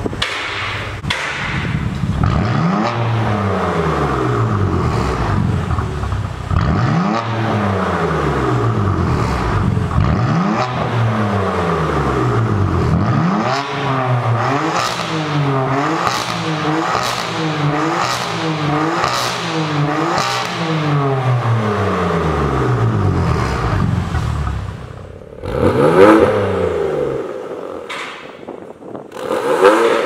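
BMW F82 M4's twin-turbo inline-six (S55) revved while standing, through a Fi Exhaust valvetronic cat-back with catless downpipe. A few long revs rise and fall, then a run of quick blips about one a second with the exhaust valves open. A last sharp, loud rev comes near the end.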